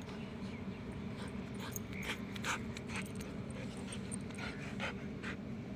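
Black German Shepherd puppies at play, giving a string of short, sharp high squeaks between about one and a half and five seconds in, over a steady low hum.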